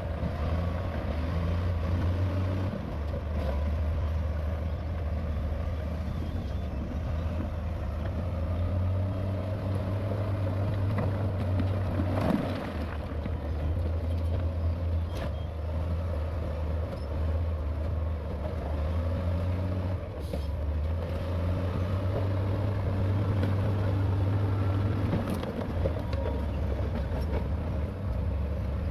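Heavy diesel earthmoving machinery running with a steady low rumble. There is a sharp loud knock about twelve seconds in and a few fainter clanks later.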